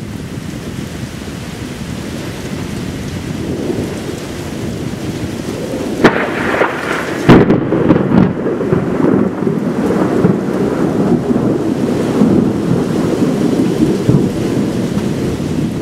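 Thunder: a low rumble builds, then two sharp cracks about six and seven seconds in, followed by a long, loud rolling rumble.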